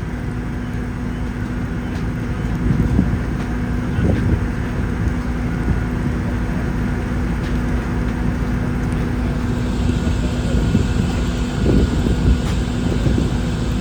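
A vehicle engine running steadily: a constant low rumble with a steady hum, swelling briefly now and then.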